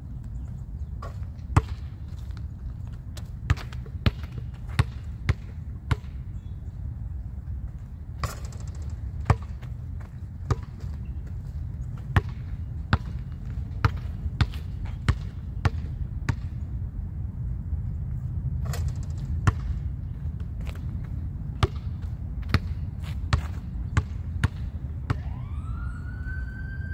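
Basketball bouncing on an asphalt court, dribbled in runs of sharp bounces between free-throw shots, over a steady low rumble. About two seconds before the end a siren rises in pitch and then holds.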